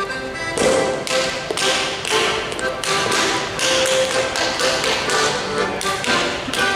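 Accordion playing a Bavarian folk dance tune, with the sharp slaps and stamps of a Schuhplattler dancer striking his thighs, knees and shoe soles in time with it, a strike every half second or so.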